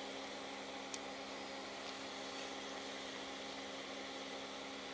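Steady low hum with an even hiss over it, and one faint click about a second in.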